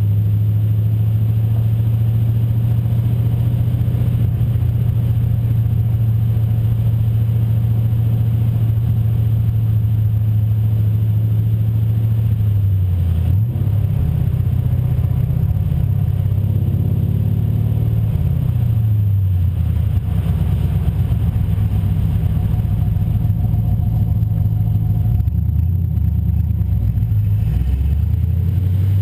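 1999 Camaro Z28's V8 idling through long-tube headers and a Borla dual exhaust with an H-pipe, a loud, steady low exhaust note. About halfway through, and again near the end, the engine speed rises and falls a few times as the car creeps forward.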